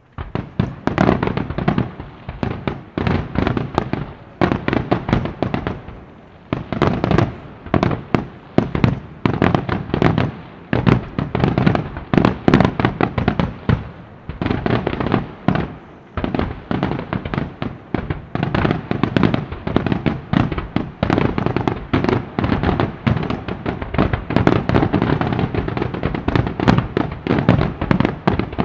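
Aerial fireworks display: shells bursting in rapid, almost unbroken succession, a dense barrage of bangs and cracks. It eases briefly about six seconds in, then grows louder and denser near the end.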